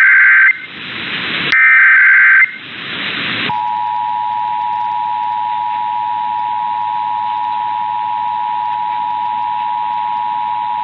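Emergency Alert System test received on AM radio. It opens with the end of one shrill, warbling burst of SAME header data and a second full burst about a second later, with radio hiss between them. At about three and a half seconds the EAS two-tone attention signal (853 and 960 Hz) starts and holds steady.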